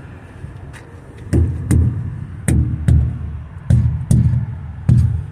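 Rubber mallet striking inflated semi-truck tires, four pairs of solid thumps, each with a low booming bounce. The hard bounce sound is the sign of proper air pressure in the tires.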